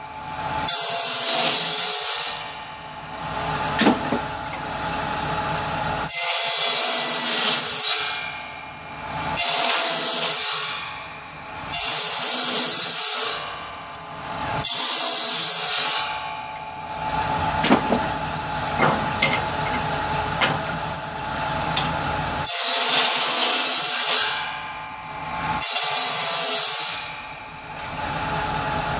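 Power saw running and cutting wood for kindling. It makes a series of loud, hissing cuts of about a second and a half each, with the saw running on at a lower level between cuts.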